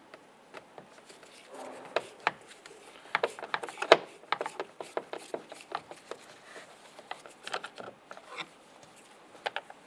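A Phillips screwdriver working a screw out of a truck's interior door panel, heard as irregular light clicks and scrapes of the tool and the plastic being handled. There is a sharper click about four seconds in.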